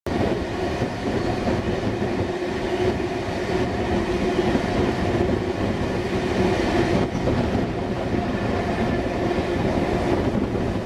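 Passenger train running along the line, heard from a carriage window: a steady rumble of wheels on the rails.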